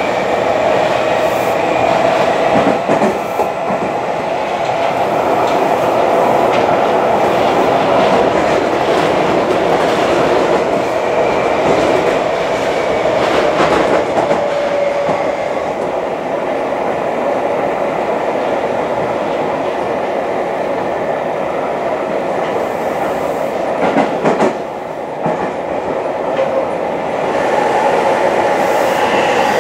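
Interior running sound of a Seibu 6000 series electric commuter train with a Mitsubishi SiC-VVVF inverter, travelling at speed. A steady hum of wheels on rail carries faint, gently drifting motor whine tones, with a few clacks over rail joints.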